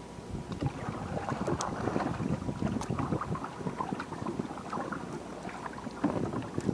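A wooden paddle stroking the water beside a small outrigger canoe, with irregular splashing and water lapping at the hull. Wind runs on the microphone throughout.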